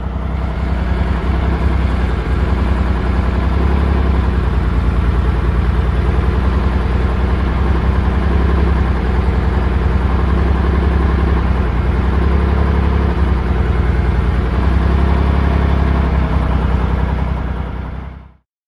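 Mitsubishi 3000GT VR-4's twin-turbo 6G72 V6 idling steadily.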